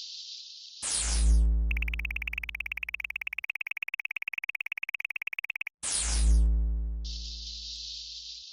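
Synthesized sound effects for cats: a high hissing buzz, then a falling electronic swoosh with a deep bass boom, followed by a rapidly pulsing high electronic tone. A second swoosh and boom come near six seconds, and the high buzz returns near the end.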